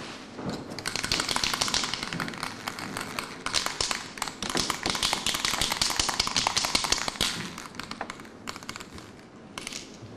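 A fast, irregular clatter of many sharp taps that goes on for about seven seconds, then thins out, with a brief burst just before the end.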